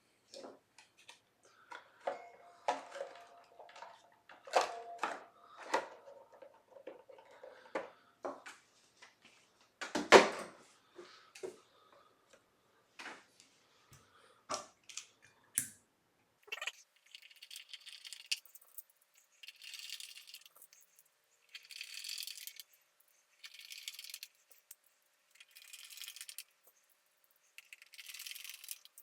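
Small parts and tools being handled on a workbench: clicks and taps, with a louder knock about ten seconds in. Then, from about seventeen seconds, a scratchy rasp repeats roughly every two seconds.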